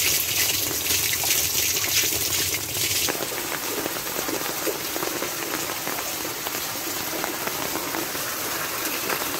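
Water pouring from a pipe onto the gravel top of a rainwater filter barrel. About three seconds in, this changes to filtered water gushing from a PVC outlet pipe and splashing down into an open well.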